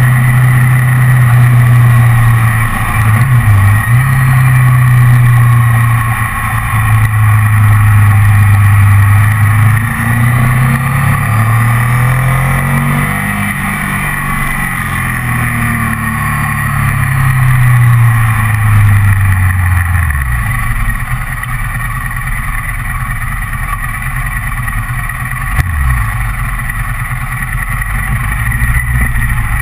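Ducati ST4S's 996 cc L-twin engine running under way, heard from the handlebars. Its pitch holds steady at first, rises and falls with the throttle through the middle, then drops lower and quieter as the bike eases off near the end.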